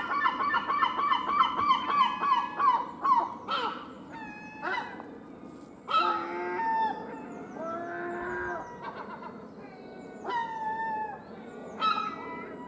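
Seagulls calling: a fast run of repeated cries, about three a second, for the first three seconds, then scattered single calls that fall in pitch, over a steady low background noise.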